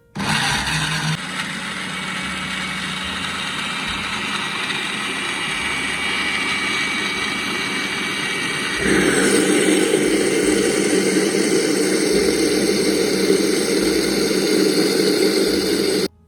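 Electric blender motor running, blending the drink's ingredients; it starts and stops abruptly and grows louder about nine seconds in.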